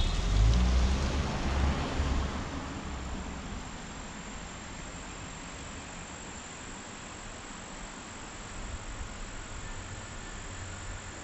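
A car passing on the road and fading away over the first two seconds or so, followed by steady insect trilling at a high, even pitch.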